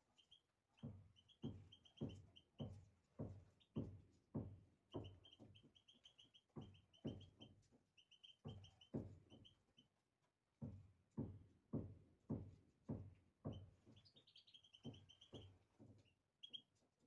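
European goldfinches chirping in short runs of quick high notes, over a steady series of soft low knocks about one and a half times a second.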